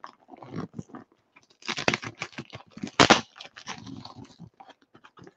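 Double-walled cardboard box being pried and torn open by hand: irregular crunching and crackling, with louder rips about two and three seconds in.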